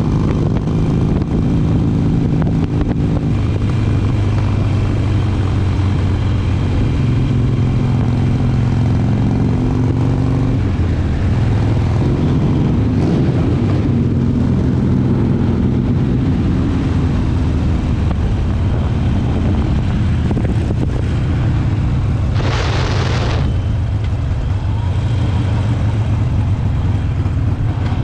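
Harley-Davidson V-twin engine running on the move, its pitch rising and falling with throttle and gear changes. A short hiss about 22 seconds in.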